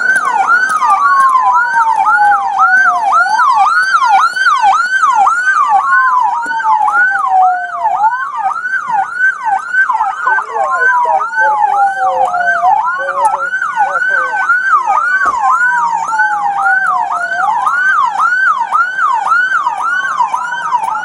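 Two police car sirens sounding at once: one in a fast yelp, about three sweeps a second, over another in a slow wail that rises and falls every four to five seconds.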